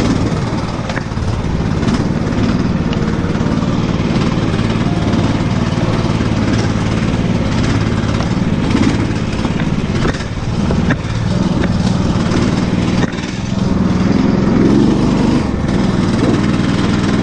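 Engine of a homemade off-road vehicle on large low-pressure tyres running steadily as it drives over a log bridge and a bumpy forest track, heard from on board. A few knocks and rattles from the jolting come in the second half.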